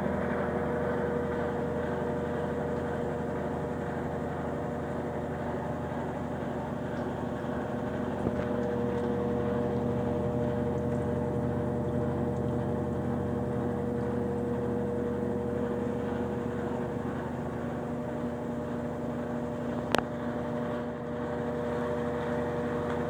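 Consul Facilite 9 kg washing machine running steadily, its motor giving an even hum and whine. There is a sharp click about 20 seconds in.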